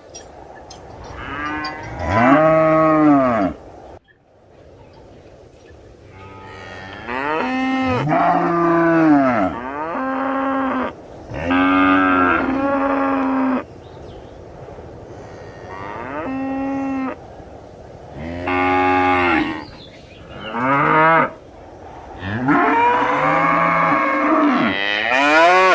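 Cows mooing: a series of separate drawn-out moos, each rising and falling in pitch and lasting one to two seconds, with short pauses between, some calls overlapping or following closely on one another.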